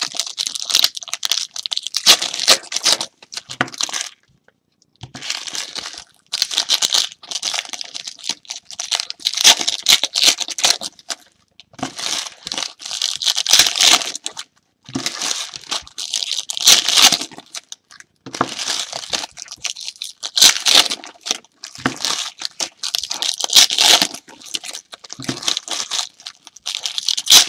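Trading card pack wrappers being torn open and crinkled by hand, one pack after another. It comes as a series of rustling bursts of a second or two each, with brief pauses between them.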